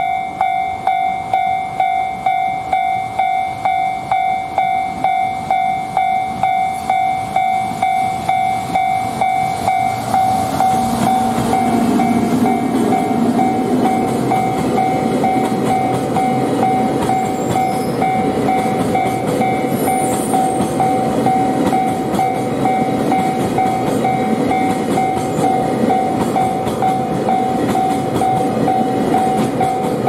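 A Japanese level-crossing warning bell ringing steadily, about two strikes a second, throughout. From about ten seconds in, the EF210 electric locomotive and a long string of Taki 1000 tank wagons run past, their wheels rumbling and clattering over the rail joints under the bell.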